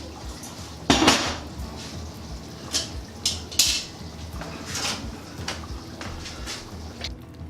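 Lid and spoon clanking and scraping against a Dutch oven of chili as it is uncovered and stirred: one loud clank about a second in, then several lighter knocks and scrapes.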